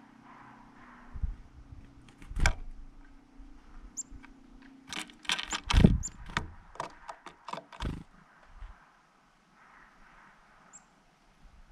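Irregular knocks and taps close to the microphone, bunched between about five and eight seconds in, with a few very short, faint high chirps from small birds.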